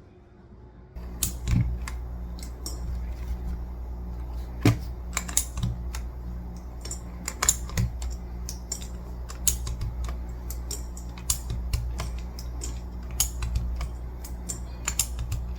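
Mechanical keyboard clicking and clacking irregularly, several sharp clicks a second, over a steady low hum; it starts suddenly about a second in.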